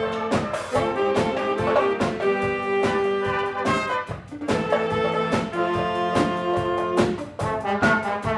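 A wind orchestra playing, brass-led with trumpets and trombones over a steady percussion beat, with short breaks in the phrase about four and seven seconds in.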